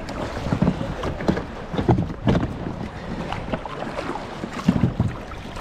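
Sea kayak under way: paddle blades splashing into the water at irregular intervals, with wind buffeting the microphone.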